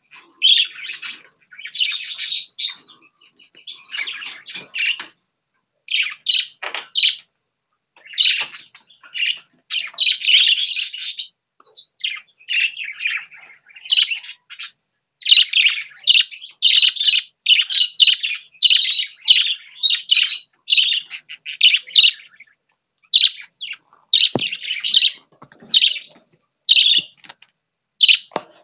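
Several budgerigars chirping and warbling in quick runs of short, high-pitched calls, with brief pauses between the runs.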